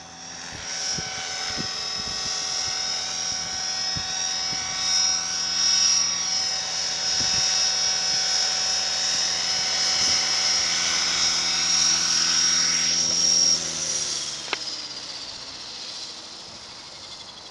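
Blade 550 X electric RC helicopter: its motor whine and rotor noise grow louder as it flies in close. In the last few seconds, after it sets down on the grass, the motor and rotor wind down in pitch and fade.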